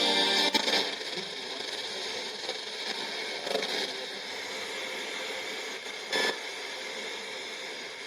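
Retekess TR604 portable radio hissing with static as it is tuned between stations: the music cuts off about half a second in, and short snatches of signal break through the noise, the clearest about six seconds in.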